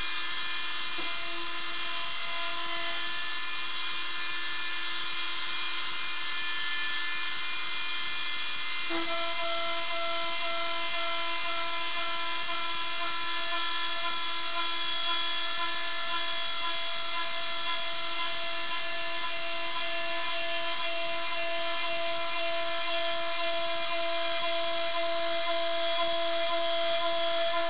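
CNC router spindle whining steadily as it mills a small pulley, with a new steady tone joining about nine seconds in.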